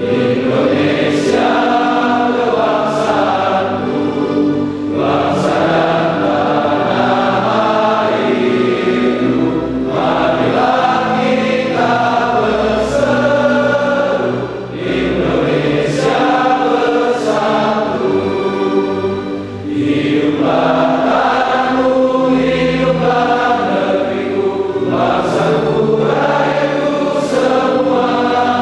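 A group of voices singing in chorus with music, in phrases a few seconds long with brief breaths between them.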